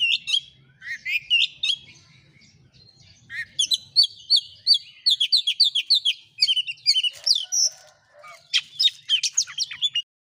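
Oriental magpie-robin singing in loud whistled phrases. It opens with rising notes, then gives a fast run of sharp repeated notes at about three a second, and ends with a dense burst of varied notes that cuts off suddenly near the end.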